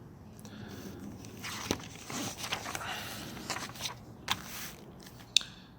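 Paper pages of an instruction booklet being handled and turned: uneven rustling with several sharp clicks, the sharpest one near the end.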